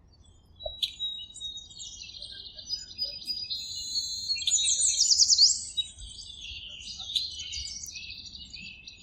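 Birds chirping and singing, several calls overlapping, with rapid trills and quick upward-sweeping notes that are loudest about five seconds in.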